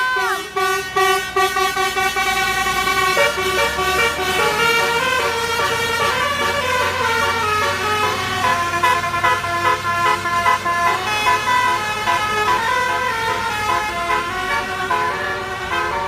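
A bus's melodic multi-tone air horn (a telolet or basuri horn) playing a tune, its notes stepping from pitch to pitch, with one falling slide right at the start. The bus engine runs underneath through the middle of the tune.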